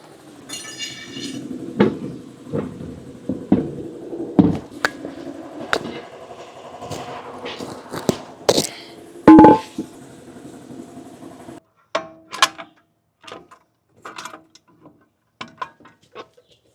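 Metal tools and brake parts knocking and clanking during a truck brake teardown, with one loud ringing clank about nine seconds in; the knocks thin out to scattered light clicks near the end.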